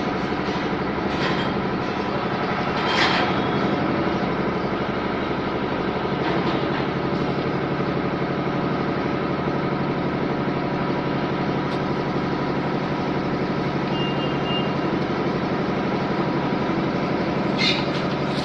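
A machine motor running with a steady hum, with a few light clicks over it.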